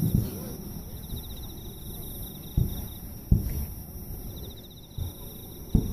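Fireworks shells bursting with low booms: two a little past the middle, less than a second apart, and a third near the end. Under them runs a steady, fast-pulsing high trill of insects such as crickets.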